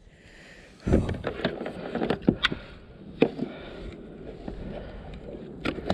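Scattered knocks and rubbing against a plastic fishing kayak as a small hooked flathead thrashes in the cockpit and is grabbed by the lure. The sharp irregular clicks start about a second in over a rustling noise.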